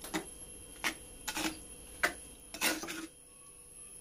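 Metal spoon scraping and knocking against the inside of a clay cooking pot while stirring chopped vegetables and grated coconut: about five short scrapes, then a pause near the end.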